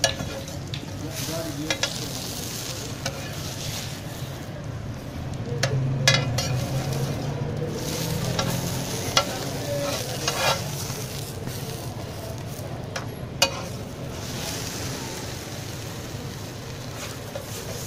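Shami burgers sizzling on a large flat griddle. A metal spatula scrapes and clinks against the griddle several times as the cook presses and turns them.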